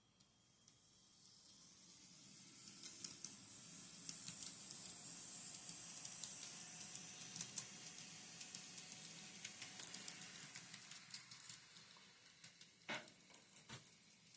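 N scale Kato SD40-2 model locomotive running along the track: a high hiss with many small clicks from the wheels and motor that grows louder over the first few seconds, holds, then fades near the end, with a couple of sharper knocks shortly before the end.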